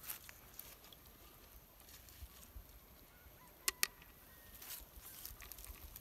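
Quiet outdoor background with two sharp clicks in quick succession a little past the middle.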